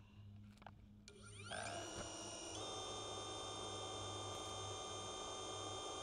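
DJI Avata 1 FPV drone's motors and ducted propellers starting up on the ground: about a second in they spin up with a rising whine, then about two and a half seconds in they settle into a steady high-pitched idle whine.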